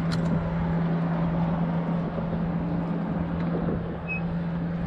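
A steady low engine hum, one unchanging tone, over an even wash of wind and water noise.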